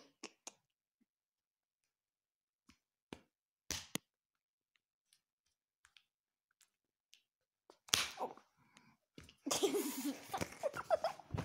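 Quiet handling of a phone with scattered faint clicks and rustles of clothing and bedding, a short rustle about four seconds in, then from about eight seconds a louder stretch of rustling and scuffling as the phone is moved, mixed with short voice sounds.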